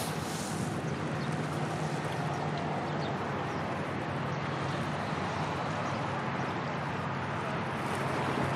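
Steady low engine drone of a passing ship, under an even wash of wind and water noise.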